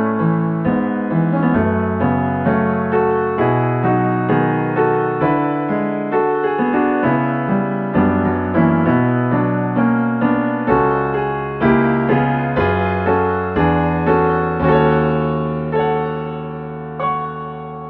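Solo piano music, gentle and slow, notes struck about twice a second, settling on a held chord that fades out near the end.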